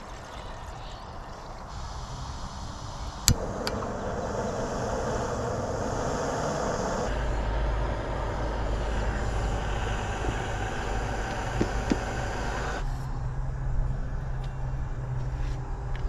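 A camp stove lit with a single sharp click about three seconds in, then the burner hissing steadily, with a deeper rumble joining midway; the hiss cuts off abruptly near the end.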